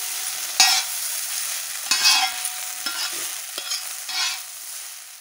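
Egg chow mein sizzling on a large flat griddle pan as it is tossed and stirred. A steady frying hiss runs throughout, with a louder scraping stroke roughly every second.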